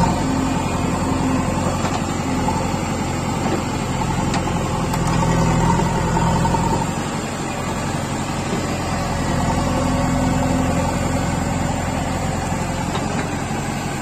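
Heavy diesel machinery engine running steadily, working harder and louder twice for a couple of seconds, about five seconds in and again about ten seconds in.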